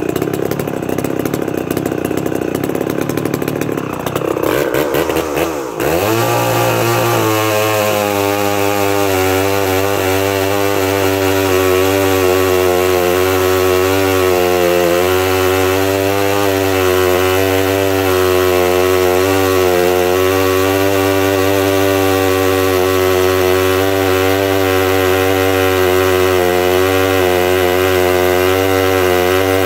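Vintage Danarm DDA110 two-stroke chainsaw, just brought back to running, cutting through a large log. For the first few seconds the engine runs with a rapid crackle; about six seconds in it settles into a steady note under load, wavering slightly in pitch as it cuts.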